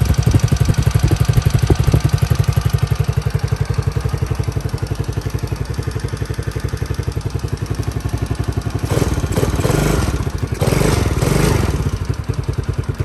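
Single-cylinder four-stroke engine of a 110cc ATV idling on a cold start with a steady, even putter, just after a carburettor replacement. Twice near the end a louder rush of noise rises over it briefly.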